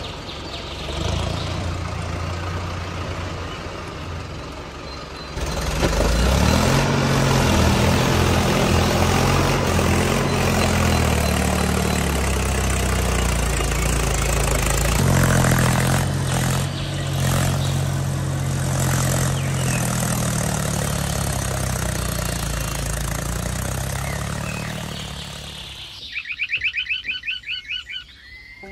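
Toy tractors' electronic engine sound effect: a diesel tractor engine running, getting louder about five seconds in with a brief rev, over the whir of the toys' motors. Near the end the engine sound fades and a short horse whinny plays.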